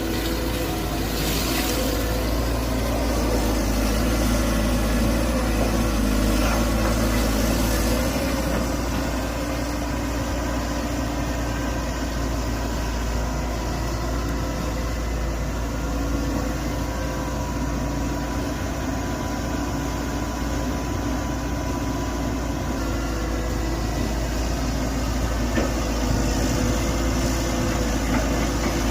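Mini excavator's engine running steadily.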